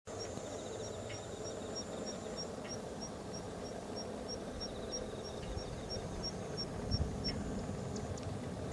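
Insects chirping: a regular run of short, high chirps about three a second that stops near the end, over a fainter pulsing trill and a steady background hiss.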